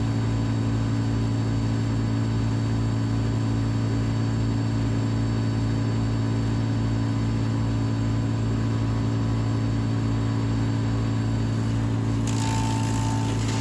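Vermeer BC700XL wood chipper's engine running steadily with a strong low hum and a pulsing throb. A harsher rush of noise joins about twelve seconds in.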